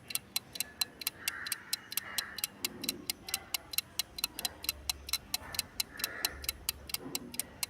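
Countdown clock-ticking sound effect: rapid, even ticks, about five a second, over faint soft background music.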